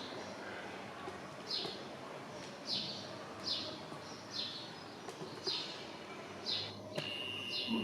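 A bird calling with short high chirps that sweep downward, repeated about once a second, over steady outdoor background noise. Near the end comes one held high whistle lasting about a second.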